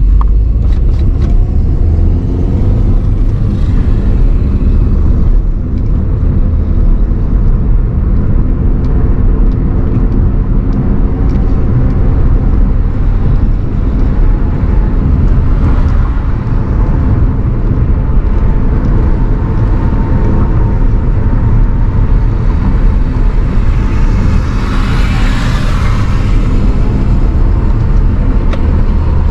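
Car running with a steady low engine rumble. A rushing hiss swells and fades near the end.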